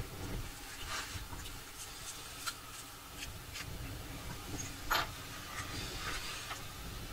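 Light handling noise: scattered small clicks and rubbing as small tools and parts are handled on a wooden workbench, with one sharper click about five seconds in.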